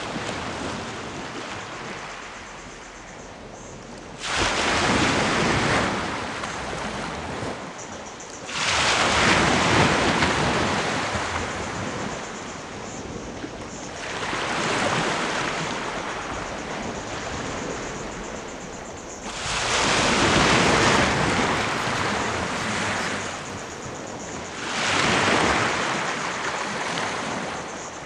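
Small lake waves breaking and washing up a fine pebble beach. They come in surges of rushing water about every five seconds.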